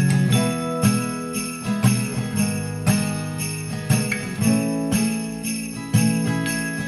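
Background Christmas pop song, an instrumental stretch with jingling sleigh bells over a steady beat.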